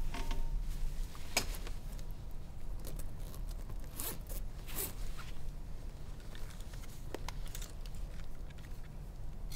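Zipper of a fabric backpack being pulled open, in a few quick strokes about four to five seconds in, amid soft rustling and small clicks of the bag being handled.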